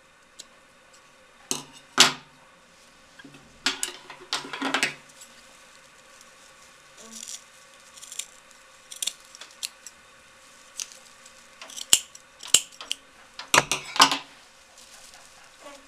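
Steel scissors snipping through the loose, coarse burlap at the edge of a hat brim, trimming it even: irregular cuts in clusters with pauses between. A louder burst of snips and handling comes near the end.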